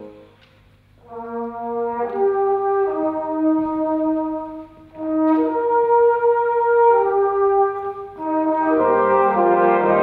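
Brass band playing slow held chords in short phrases, after a brief hush in the first second, with small breaks between phrases and a fuller, louder chord coming in about nine seconds in.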